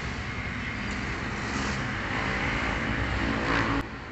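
Motor vehicle engine running with steady outdoor traffic noise, slowly growing louder, then cutting off abruptly near the end.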